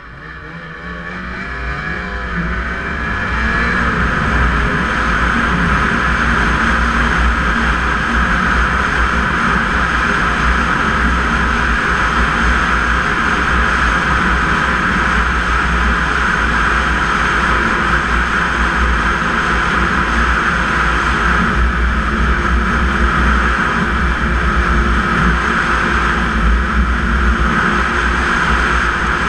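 Snowmobile getting under way, its engine note rising and growing louder over the first few seconds, then running steadily at speed.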